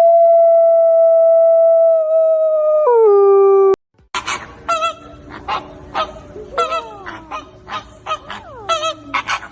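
A wolf howling one long, steady, loud note that drops in pitch near its end and cuts off abruptly about four seconds in. Then flamingos honk in many short, repeated calls, some sliding down in pitch.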